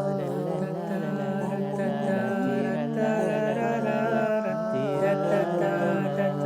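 Several men singing together a cappella, improvising a film-score-style backing with their voices: a low drone is held underneath while other voices hum and slide through changing lines above it.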